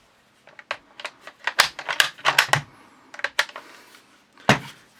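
Rifles being handled: a quick run of sharp metallic clicks and rattles, then a single louder knock about four and a half seconds in.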